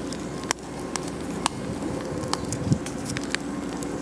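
A small wood fire crackling in an Emberlit stove: twigs pop and snap at irregular moments, several times over a few seconds, while sticks are handled at the stove. A faint steady low hum runs underneath.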